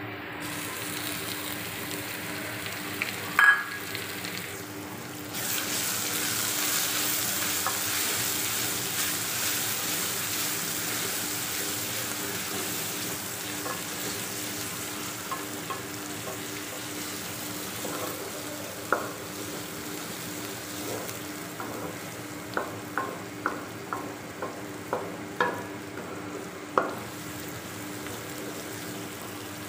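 Chopped onions sizzling in hot oil in an aluminium pot while a wooden spoon stirs them. The sizzle grows louder about five seconds in. There is a sharp clink a few seconds in, and a series of short taps of the spoon against the pot near the end.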